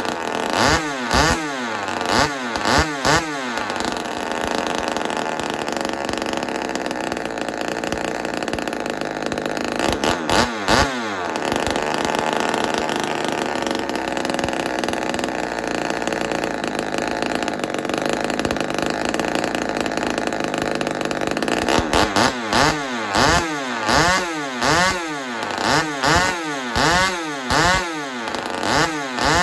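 Ported Homelite XL-76 two-stroke chainsaw engine running without bar and chain on its ring-seating first run. It is blipped up and down several times, then held at high revs for most of the middle with one brief drop, then blipped again about once a second near the end.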